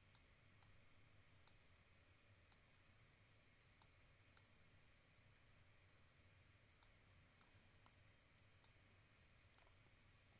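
Near silence with about ten faint, irregularly spaced clicks of a computer mouse over a low room hum.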